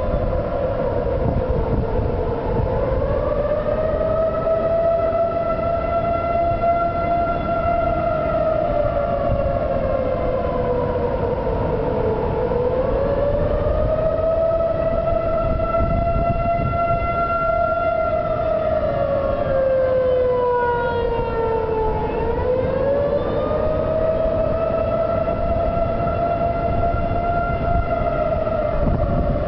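Outdoor tornado warning siren wailing loudly: one tone that rises, holds and then slowly falls, repeating about every ten seconds.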